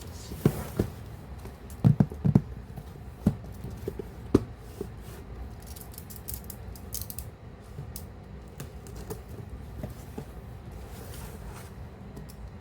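Hands handling a boxed action figure: several sharp knocks and taps in the first few seconds, then crinkling of the packaging.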